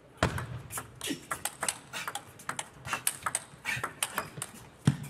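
Table tennis rally: the ball clicking sharply off the rackets and the table in quick alternation, several strikes a second, with a heavier thump near the end.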